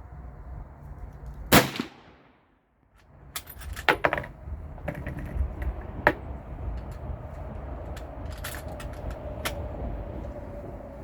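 A single shot from a Savage Model 99 lever-action rifle in .300 Savage about a second and a half in, then a run of sharp metallic clicks and clacks over the next several seconds as the rifle is handled and cycled.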